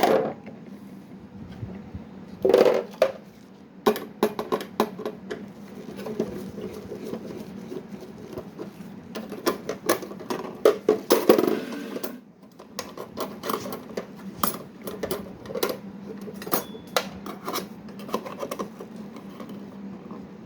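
Irregular clicks, clinks and knocks of hand tools and metal fittings being handled and worked, busiest about two and a half seconds in and again from about nine to twelve seconds, over a faint steady hum.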